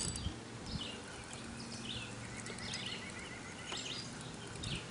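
Birds chirping: short high calls repeating every half second to a second, with a quick even trill about two seconds in, over a faint low steady hum.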